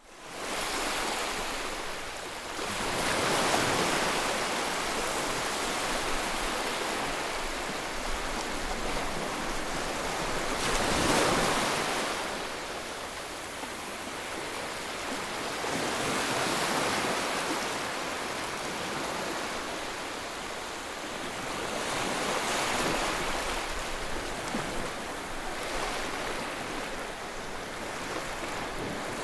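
Ocean waves breaking on the shore, each surge of surf rising and falling every five or six seconds over a steady wash.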